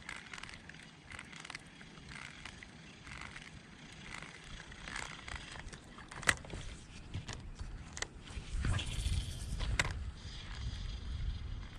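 Handling noise while fishing: faint rustling and scattered light clicks. A sharp click comes about six seconds in, and two more near the two- and three-quarter marks. A low rumble sets in from about two-thirds in.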